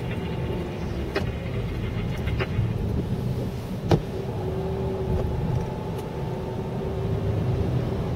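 Steady low rumble of a car moving slowly on a wet road, heard from inside the cabin, with one sharp click about four seconds in and a faint steady hum joining about halfway through.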